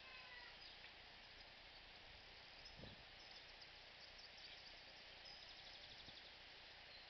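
Faint outdoor ambience: a steady soft hiss with a few faint high chirps, and one soft low thump about three seconds in.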